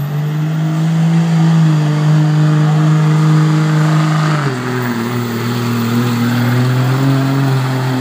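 Pickup truck engine running hard under full load while pulling a weight-transfer sled, held at a steady high pitch. About four and a half seconds in the note drops suddenly to a lower steady pitch and holds there.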